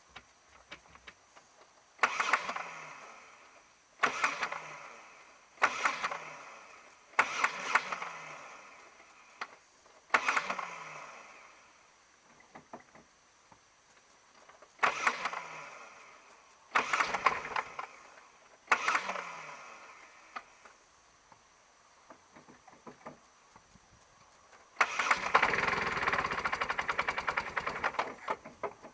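Power tool run in short bursts, about eight, each winding down with a short falling tone, then one longer burst of about four seconds near the end. It is driving the long bolt that presses the wheel-bearing race into the hub.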